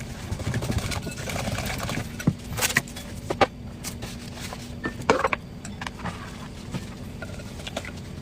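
Knife cutting into a watermelon: a rasping stretch in the first couple of seconds, then scattered sharp clicks and taps, over a steady low hum.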